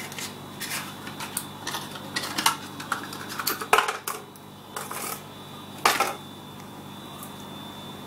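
Clicks, taps and knocks of a carton and kitchenware being handled on a stone countertop, with two sharper knocks about four and six seconds in, then only a faint steady hum.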